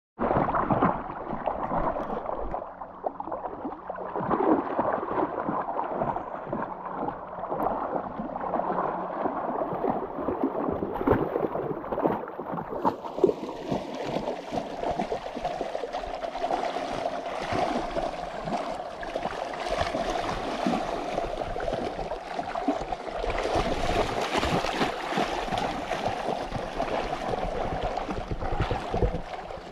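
Continuous splashing of a Weimaraner and the person just behind it wading through a shallow river, with many quick irregular splashes over the rush of the water. The splashing turns brighter and hissier from about halfway through.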